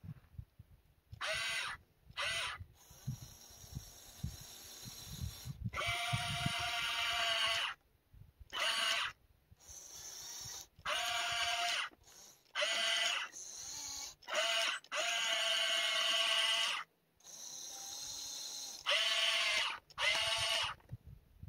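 Electric gear motors of a radio-controlled excavator whining in repeated stop-start bursts of one to two seconds as it drives its tracks and pushes dirt with its blade. Through the first several seconds there is also low crunching and scraping of dirt and stones.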